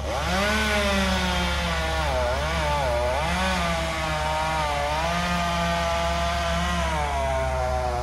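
Chainsaw running at high speed through wood, its pitch sagging under load and picking up again several times.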